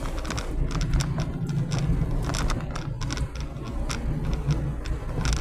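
Car driving, heard from inside the cabin: a steady low road and engine rumble with frequent irregular clicks and knocks over it.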